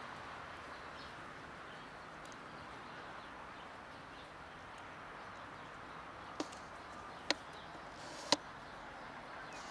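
Faint steady outdoor background, then three sharp crunching footsteps on dirt and dry leaves, about a second apart, in the second half.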